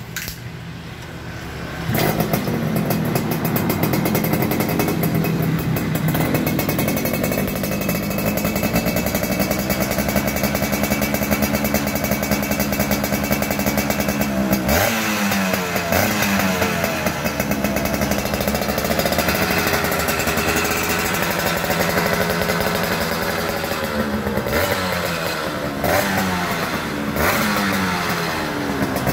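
Yamaha Force 1 110cc two-stroke motorcycle engine running through a chrome standard-racing aftermarket exhaust. It gets louder about two seconds in and holds a steady note, then from about fifteen seconds the throttle is blipped repeatedly, the pitch rising and falling with each rev.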